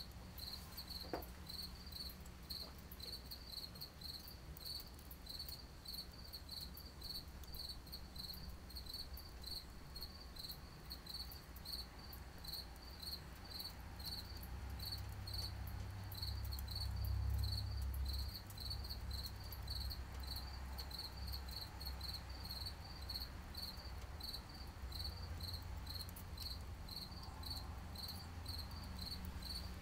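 A cricket chirping steadily, about two short high chirps a second, over a low rumble of wind on the microphone that swells about halfway through. A single small snap comes about a second in.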